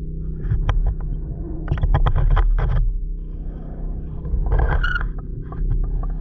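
Underwater recording during a dive: a steady low hum with scattered clicks and two bursts of bubbling, about two and five seconds in, typical of a diver's exhaled bubbles leaving the regulator.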